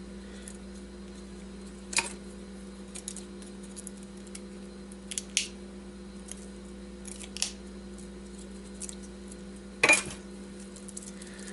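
Copper wire being unwound from a transformer winding: scattered light metallic clicks and ticks, the loudest near the end, over a steady low hum.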